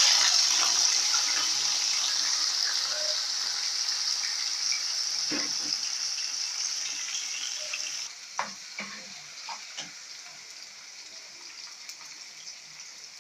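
Raw potato sticks for French fries sizzling loudly in deep oil in a frying pan just after going in. The sizzle fades gradually and drops sharply about eight seconds in, as the water in the raw potatoes boils off. A few light knocks come about five and eight to ten seconds in.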